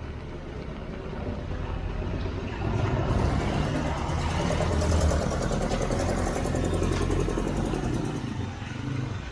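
A motor vehicle passing close by on a rain-wet street: engine hum with tyre hiss, growing louder about three seconds in and falling away near the end.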